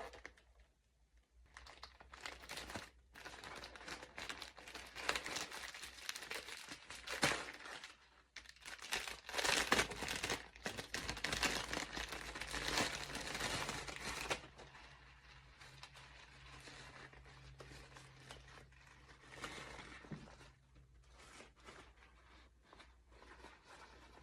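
Plastic zip bag and folded fabric bonnet hood crinkling and rustling in irregular handling noises as the bonnet is taken out and unfolded. The handling is busiest in the first half and grows fainter and sparser after about fourteen seconds.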